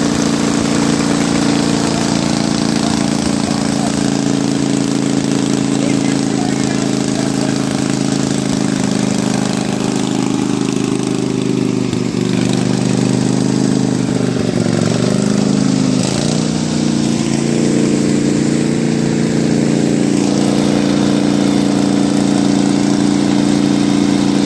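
Pulley-swapped riding lawn mower engine running steadily. About halfway through, its pitch dips and wavers for a few seconds before settling back.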